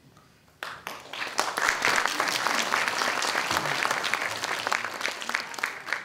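Audience applauding: the clapping breaks out suddenly under a second in, stays dense and full through the middle, and starts to thin out near the end.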